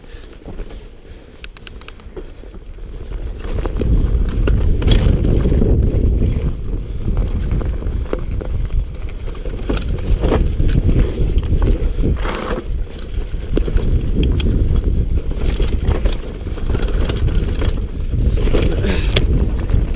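Mountain bike descending a dirt singletrack: rumble of the tyres and wind buffeting the microphone, with scattered clicks and rattles from the bike over the rough ground. It grows much louder about four seconds in.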